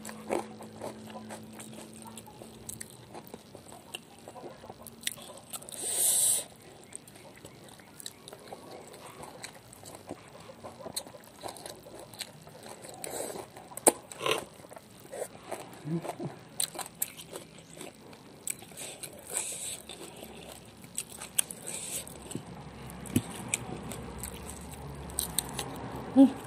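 Close-miked chewing and mouth sounds of a person eating rice and spicy chicken feet by hand, with small wet clicks and crunches throughout. There is a brief, louder crackle about six seconds in and a sharp click about fourteen seconds in.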